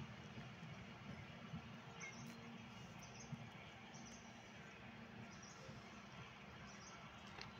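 Very faint: short high bird chirps repeating about once a second over a low steady rumble from the narrow-gauge train moving away.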